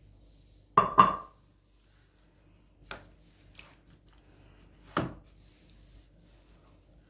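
Raw steaks handled on a bamboo cutting board: two sharp knocks close together about a second in, then softer taps, and another knock about five seconds in.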